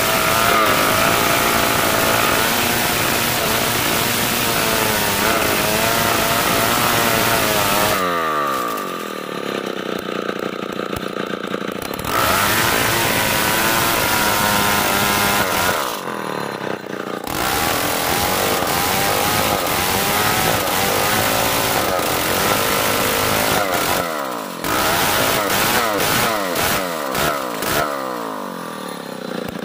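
Old Stihl two-stroke chainsaw ripping lengthwise along the grain of hard marsawa batu timber at full throttle. A few times the engine drops back toward idle and then revs back into the cut. Near the end there are several quick revs before it eases off.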